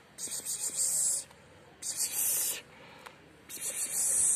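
A cat hissing, three breathy hisses of about a second each with short pauses between them.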